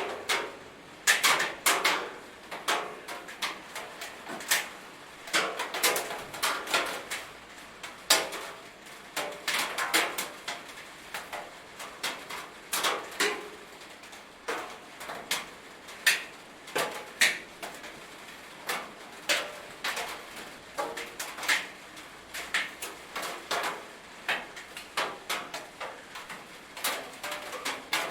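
Raindrops striking a metal roof: irregular sharp pings and taps, several a second and uneven in loudness, over a faint steady patter.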